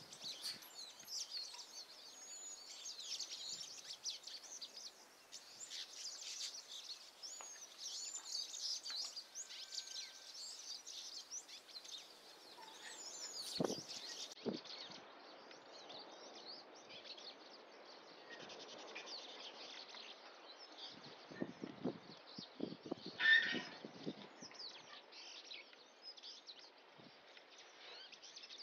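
Many small birds chirping and calling over each other, over a faint outdoor hiss. A sharp knock comes about halfway through, and a few rustles and knocks come later, the loudest about four-fifths of the way in.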